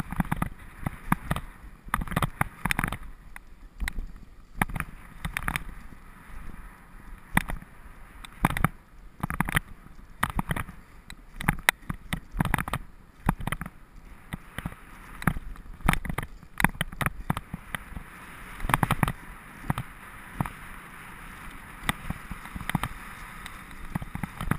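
Dog sled runners sliding over snow with a steady hiss, broken by frequent irregular knocks and rattles as the sled bumps along. The hiss grows louder in the last several seconds.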